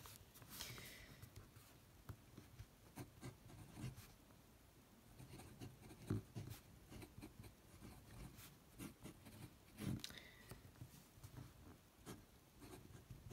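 Faint scratching of a TWSBI Eco fountain pen's nib writing on Tomoe River paper, in short, broken strokes.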